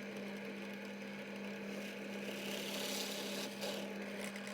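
Electric drill running steadily with a constant hum, boring an 8 mm hole through the centre of a stitched cloth buffing mop.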